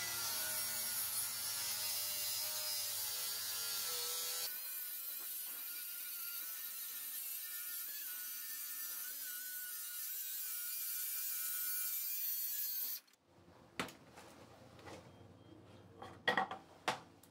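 Cordless circular saw ripping the full length of a sheet of 19 mm (3/4 inch) plywood along a guide track, its motor whining steadily under load, heavy going on the saw. The saw cuts off suddenly about 13 seconds in, and a few light knocks follow.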